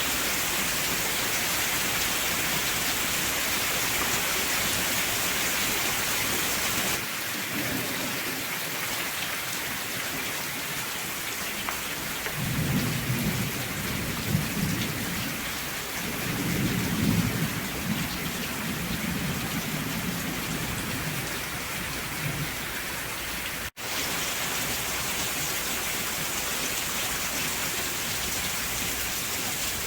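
Steady rain falling, with low rolls of thunder rumbling for about ten seconds in the middle. The sound cuts out for an instant about three-quarters of the way through.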